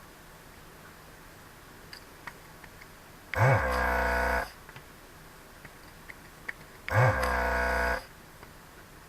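Vacuum pump of an electric desoldering tool, running twice for about a second each time, a few seconds apart. Each time it spins up quickly and holds a steady hum while sucking solder from the pins of a socket being removed from a circuit board. Faint small ticks come between the bursts.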